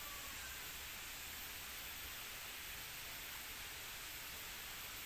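Steady, even outdoor background hiss with a faint high steady whine and no distinct events.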